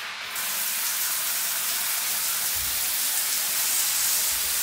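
Water spraying steadily onto electronic circuit boards as they are washed, a constant hiss that starts abruptly.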